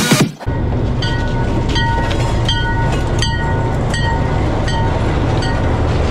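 A train rolling past close by: a steady low rumble with a sharp clack from the wheels about every three-quarters of a second.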